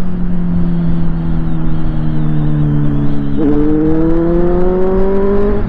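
Inline-four superbike engine running at a steady pace under heavy wind rush on the microphone. About two-thirds of the way through, a second, higher engine note comes in and climbs steadily as that bike accelerates.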